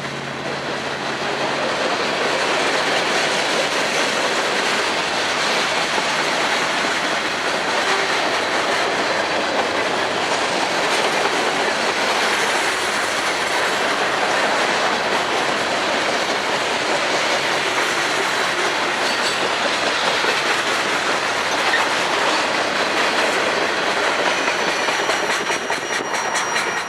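Railroad cars rolling past at track side, their wheels clacking over the rail joints in a steady rush of noise, with a low engine hum fading away in the first couple of seconds. The sound drops off sharply at the very end.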